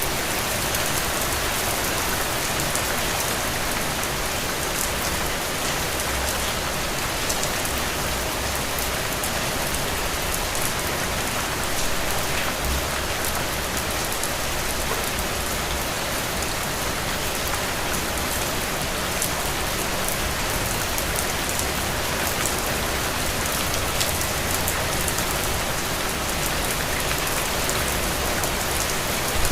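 Steady heavy rain falling and pattering on surfaces, an even hiss with many fine drop ticks.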